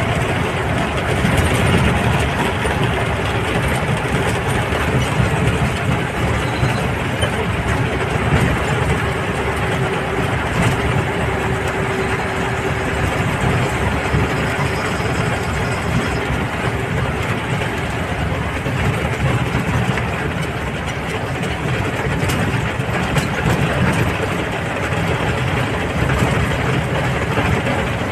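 Engine and road noise of a moving vehicle heard from inside its cab, a steady, unbroken rumble with a faint hum showing through near the middle.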